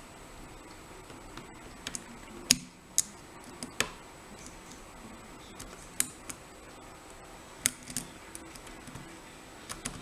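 Irregular sharp metal clicks and ticks of a lock pick and tension wrench working the pins inside an old Assa 700 series pin-tumbler cylinder, about a dozen over the span, the loudest a little over two seconds in. This is the work of trying to lift a deep front pin to its shear line, with a hook the picker thinks is a little too short to reach it.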